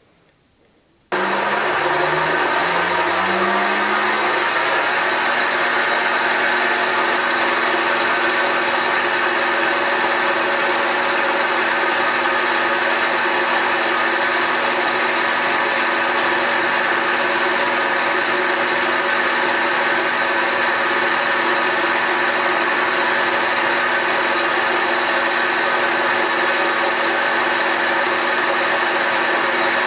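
Smart & Brown Model L lathe switched on about a second in, its motor and spindle running up to speed over the next few seconds, then running steadily.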